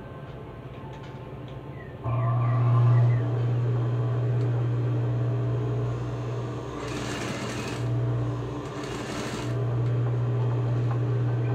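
Juki industrial sewing machine stitching through fabric, a test seam with a newly fitted needle. It starts up about two seconds in with a steady hum, slows and picks up again twice in the middle, with two short hissing bursts.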